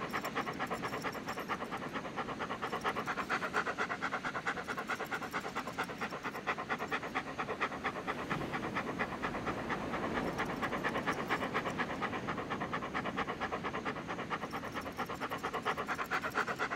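A dog panting quickly and steadily in an even rhythm.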